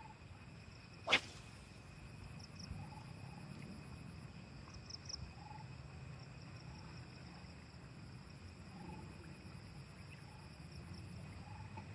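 Faint outdoor ambience: a steady high-pitched insect drone and a short animal call repeating about every second or so. A single sharp click comes about a second in.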